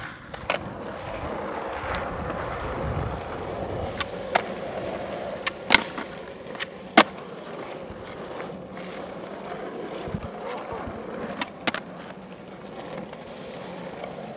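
Skateboard wheels rolling steadily over rough asphalt, with a handful of sharp clacks from the board, the loudest two about six and seven seconds in.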